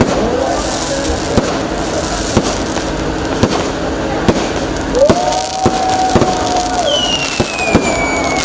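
Aerial fireworks bursting overhead: an irregular run of sharp bangs and pops with crackle. Near the end a high whistle slides down in pitch.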